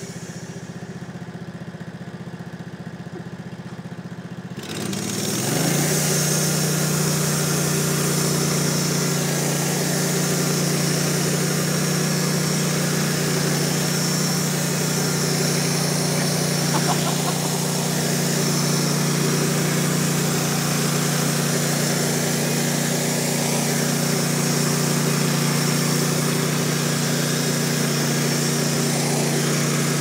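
Logosol B751 PRO band sawmill's engine idling, then throttled up about five seconds in and running steadily at full speed with the band blade turning as the saw head is pushed through a wooden beam.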